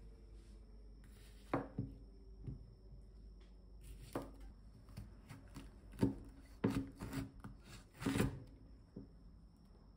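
Kitchen knife cutting a bitter melon on a wooden cutting board: irregular sharp knocks as the blade goes through and strikes the board while the ends are trimmed, then a longer stroke about eight seconds in as the melon is halved lengthwise.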